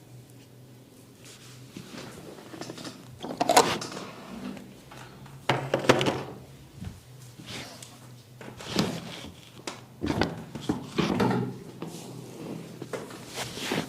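Hands working over the head and face in a massage, making irregular rubbing and patting strokes on skin and hair, with about six louder strokes spaced unevenly.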